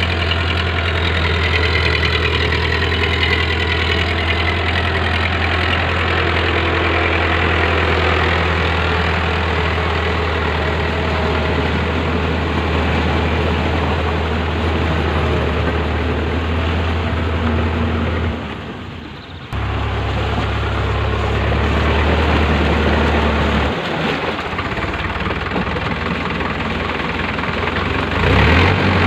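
Powertrac Euro 55 tractor's diesel engine running steadily under load while it drives a rotavator through wet paddy mud, with the churn and splash of the blades and tyres in the mud. The sound dips briefly about two-thirds of the way through, then the engine carries on as before.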